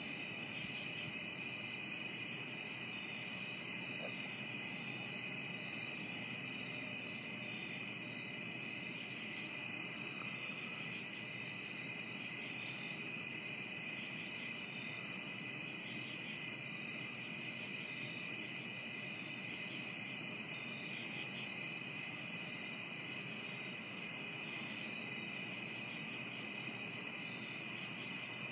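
Steady late-summer night chorus of crickets and other insects, a continuous high shrill trilling, with a faster high-pitched pulsing that comes and goes in stretches of several seconds.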